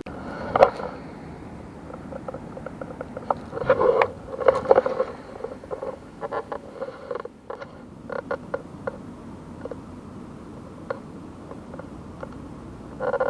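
Scattered clicks, knocks and scrapes of close handling, in a dense cluster about four to five seconds in and again near the end.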